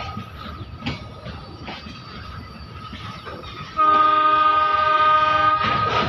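Coal goods train's hopper wagons rolling past, wheels clacking over rail joints. A loud multi-tone locomotive horn sounds about four seconds in and holds for about two seconds.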